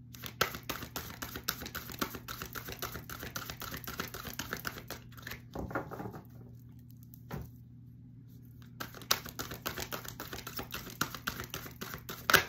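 A deck of oracle cards being shuffled by hand: a dense run of quick light card clicks, a pause of about two seconds past the middle, then more shuffling, with one sharper snap near the end.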